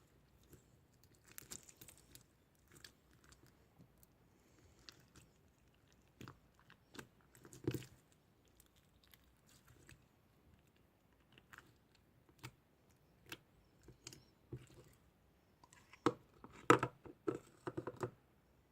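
Close-miked ASMR sounds: scattered soft clicks and crunches with short gaps between them, then a denser run of louder crunches near the end.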